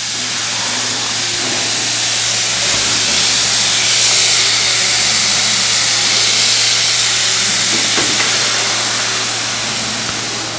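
Steam hissing steadily from a steam-therapy vessel, swelling slightly in the middle and easing toward the end, over a low steady hum.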